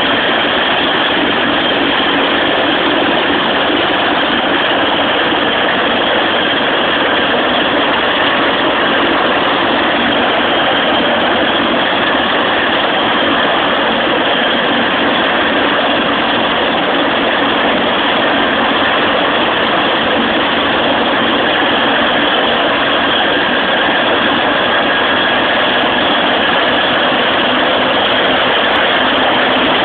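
Rescue helicopter sitting on the pad with its turbine engines running and main rotor turning, warming up ahead of lift-off. A loud, steady noise that holds even throughout.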